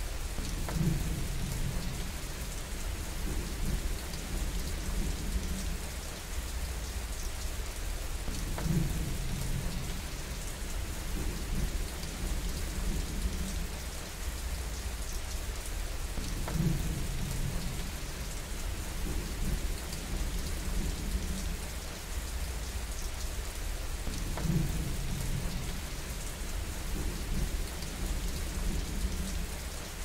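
Steady heavy rain, with a low rumble of distant thunder recurring about every eight seconds.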